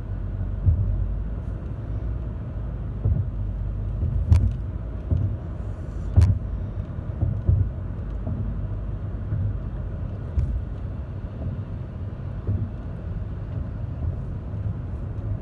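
Road noise inside a moving car: a steady low rumble, with two sharp clicks about four and six seconds in.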